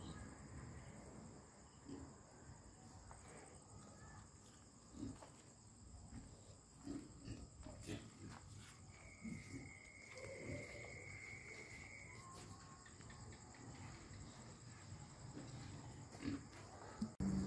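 Crickets chirring steadily at night, with scattered soft low sounds from cattle close by as they feed and move. A thin high tone is held for about three seconds midway.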